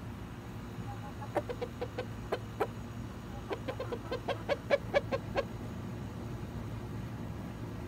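A hen clucking in two quick runs of short clucks, the second run longer and louder, over a steady low hum.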